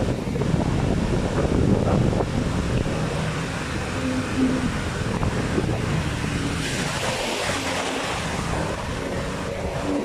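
Wind buffeting the microphone over the wash of ocean surf, with the drone of distant racing outboard engines coming and going. A brighter rush of surf swells about seven seconds in.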